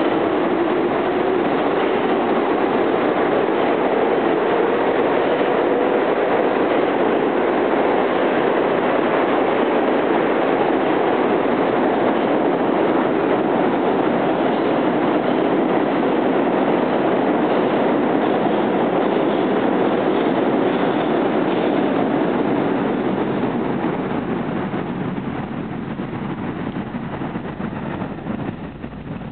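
New York City subway trains running through a station: an R62A local pulling out, then an R142 express passing on the express track without stopping. Their steady rumble and wheel noise fades off near the end.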